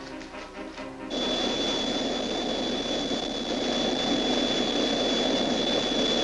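Jet-like flight sound effect: a steady jet-engine roar with a thin high whistle held on one note. It starts suddenly about a second in and cuts off abruptly at the end. Before it, the tail of the music.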